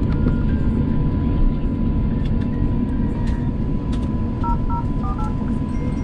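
Airbus A350-1000 cabin noise from a window seat: a steady low rumble from the engines and air-conditioning, with a thin steady whine. A few short electronic beeps come in quick pairs about four and a half seconds in.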